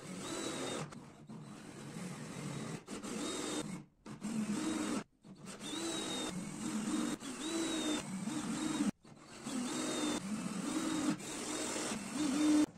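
Cordless drill running in repeated bursts as it bores and drives into thin pine slats, its motor pitch sagging and rising under load, with short breaks between runs.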